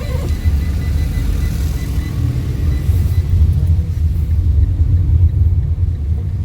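Fiat Linea car driving, heard from inside the cabin: a steady low rumble of engine and road noise. A faint high steady tone is also present and fades out about three seconds in.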